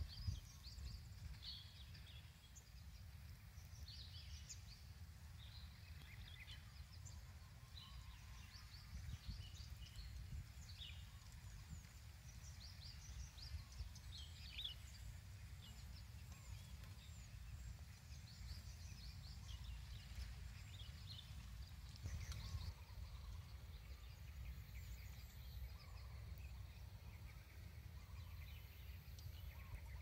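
Faint wind rumbling on the microphone, with scattered short, high bird chirps and calls throughout.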